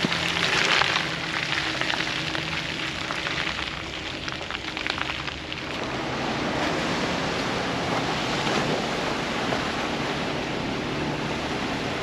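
Ford Bronco driving through trail mud and water: tyres splashing and rushing, with the engine running low underneath. The rush is loudest in the first second, and there is a spell of short gritty patters from about three to five and a half seconds in.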